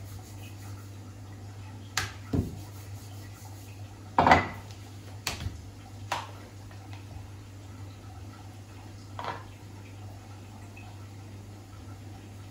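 Scattered knocks and clinks of kitchen utensils as dough is rolled and stuffed: a wooden rolling pin set down on the stone counter and a spoon scraping and tapping a plastic bowl, the loudest about four seconds in. A steady low hum runs underneath.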